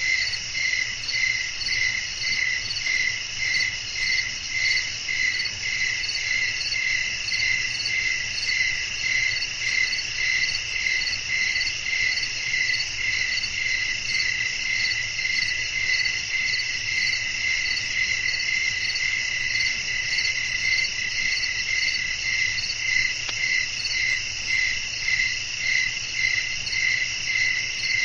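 Night chorus of crickets: a steady high trill with an even, rhythmic chirping of about two chirps a second layered over it.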